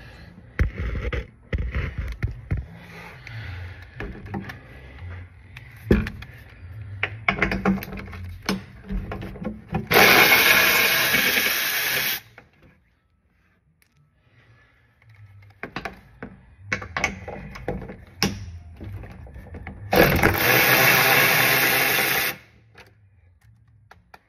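Cordless electric ratchet running twice, about two seconds each time, backing out splash-shield bolts, with scattered clicks and knocks of tool handling between the runs.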